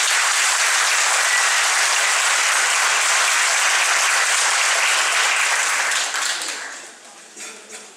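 Audience applauding, steady at first and dying away about six to seven seconds in.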